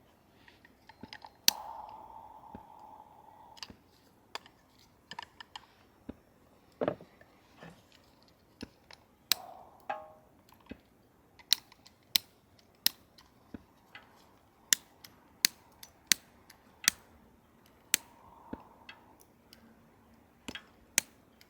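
Wood campfire crackling: scattered sharp pops and snaps, about one or two a second at irregular intervals.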